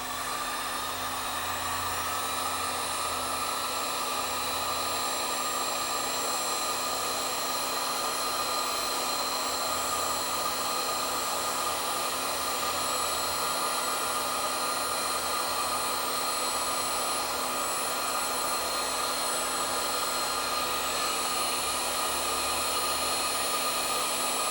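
Electric heat gun running steadily, a loud fan whir with a high whine, as it shrinks heat-shrink tubing over spliced fan wires, then switched off abruptly.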